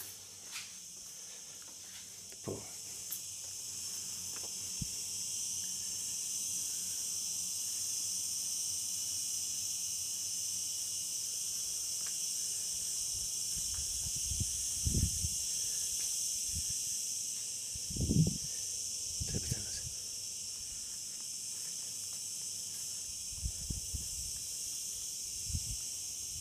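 Steady high-pitched insect chorus, which grows louder a few seconds in and then holds. A few dull low thumps come about halfway through and again near the end.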